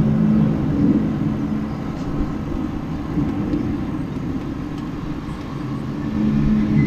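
A low droning hum made of several steady pitched tones, with a rumbling vehicle-like quality; it fades through the middle and swells again near the end. It is one of the unexplained 'strange noises' heard outdoors, of unknown origin.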